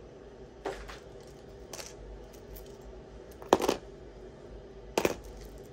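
Costume jewelry pieces of metal and glass clinking as they are handled: four short, sharp clinks about a second apart, the loudest about three and a half seconds in.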